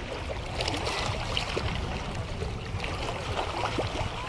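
Small waves lapping and trickling over sand and rocks at the water's edge, with irregular little splashes and gurgles.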